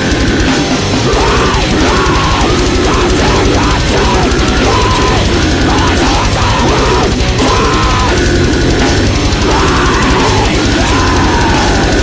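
Loud heavy rock music: a band playing with driving drums and distorted electric guitar.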